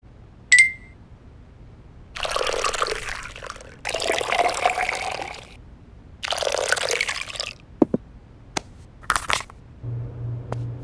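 Coffee being poured three times, each pour lasting about a second and a half, as the moulds of an ice cube tray are filled. A short bright ping comes about half a second in, a few light clicks follow the pours, and music with a steady pulsing beat starts near the end.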